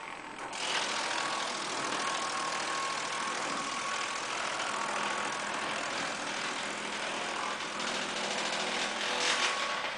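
Engine-driven homemade wood chipper running steadily with a dense machine noise and a faint whine, swelling briefly about nine seconds in.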